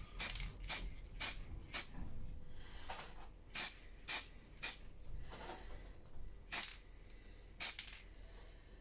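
Automotive spray paint hissing from the nozzle in about ten short bursts, in quick runs of roughly two a second, as a top coat is dusted onto a small model car body.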